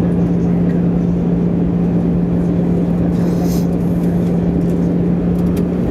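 Cabin noise inside an Airbus A320 at a window seat beside the wing-mounted turbofan engine during the descent to land: a steady engine drone and rush of air, with a constant low hum.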